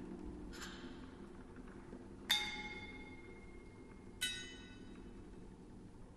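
A metal percussion instrument struck twice, about two seconds apart, each strike ringing out in clear bell-like tones and slowly fading.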